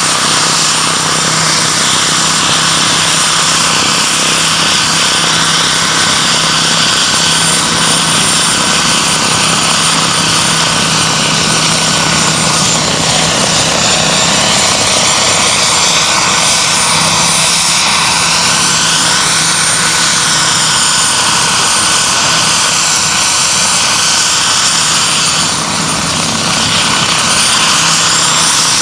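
Turbine-powered radio-controlled scale UH-1C Huey helicopter hovering and flying low: a steady loud roar of turbine and rotor with a thin high whine on top, its tone shifting slightly as the model moves about.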